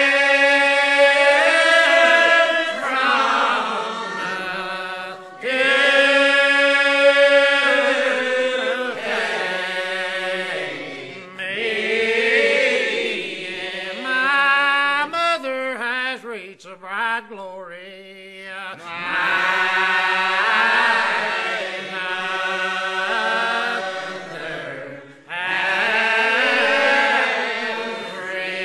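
A hymn being sung in slow phrases a few seconds long, with short breaks between them.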